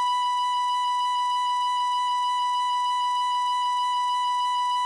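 Tin whistle holding one long, steady B note without a break.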